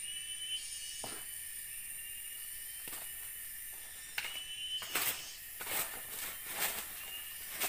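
Dry leaves and brush rustling and swishing as forest debris is raked and shoved with a stick, several swishes from about four seconds in. Behind it runs a steady high-pitched forest insect drone with a short rising chirp repeating about every two seconds.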